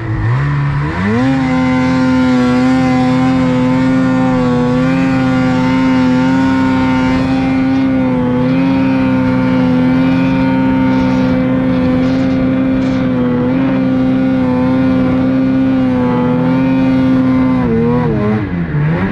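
Snowmobile engine revving up about a second in, then held at a steady high pitch under throttle as the sled rides through deep snow, and dropping off near the end.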